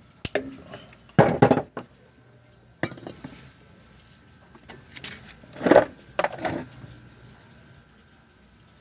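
Metal hand tools and parts clinking and clanking against each other in about five separate bursts, with the loudest clatters about a second in and just before the six-second mark.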